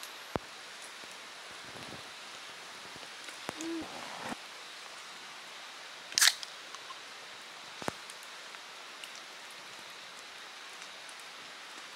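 Aluminium drink can cracked open: one short, sharp hiss from the pull-tab about six seconds in, the loudest sound here. A few faint clicks and knocks sit over a low steady background hiss.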